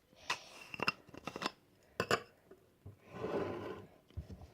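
A plastic powder container being opened and shaken over a bowl: several sharp clicks and taps, then about a second of soft shaking hiss around three seconds in as the powder pours out, followed by a couple more taps.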